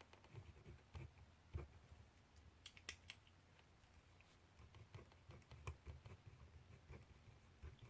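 Faint desk sounds of writing by hand on paper: scattered small scratches and clicks with soft knocks on the desk, and a short cluster of sharper strokes about three seconds in.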